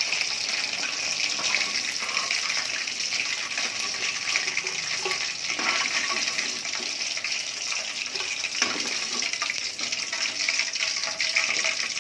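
Batter-coated chicken 65 pieces deep-frying in hot oil, a steady sizzle, on their second fry until crisp. A few light knocks of a utensil against the pan.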